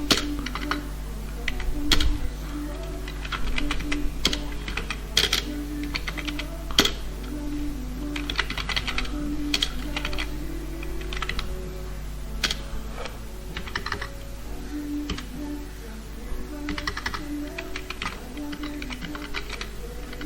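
Computer keyboard keys clicking in irregular short runs and single taps, over soft background music.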